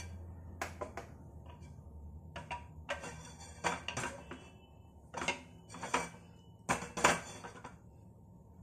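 Non-stick frying pan and wooden spatula being shifted about on a gas stove's burner grate: about ten irregular knocks and clanks, some ringing briefly.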